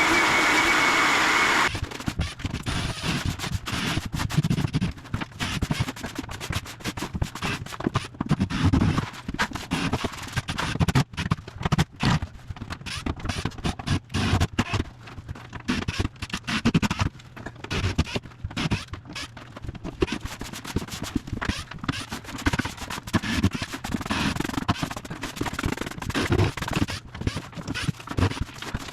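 Bosch Bulldog Max SDS-Plus rotary hammer running with a tile chisel, cutting off about two seconds in. After that comes a long run of irregular scraping and knocking.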